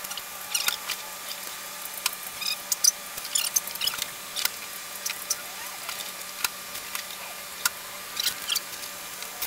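Plastic zip ties being pulled tight through their ratchet heads: a string of short, irregular zipping clicks and squeaks.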